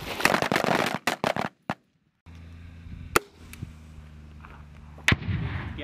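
Rifle fire at close range, several quick shots over the first second and a half, cut off abruptly. After a short gap comes a steady low rumble of wind and ambient noise, broken by two sharp single cracks about three and five seconds in, the second trailing off in a brief rumble.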